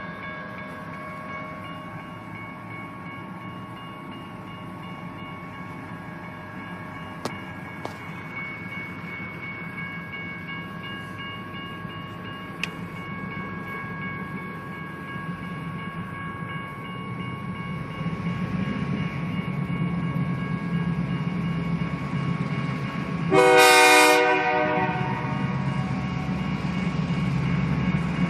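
Diesel freight locomotive approaching, its low engine rumble growing louder through the second half, with one short air-horn blast of about a second near the end.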